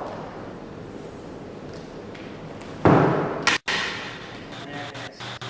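A single loud metallic clank about three seconds in, ringing briefly as it fades, from metal parts of the magnetic drill setup being handled.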